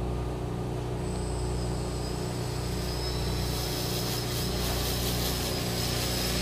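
Quadcopter's electric motors and propellers spinning up on the ground: a steady whir with a thin high whine that comes in about a second in, growing louder and rougher in the second half as the throttle rises.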